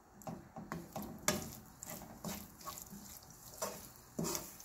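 Wooden spatula stirring and scraping a thick tomato-onion masala around a nonstick kadai, in about eight short, irregular strokes. The masala is being fried until the oil separates.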